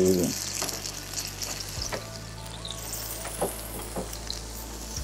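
Ragi (finger-millet) dosa batter sizzling and crackling on a hot dosa pan, with a few light clicks of a wooden spatula against the pan.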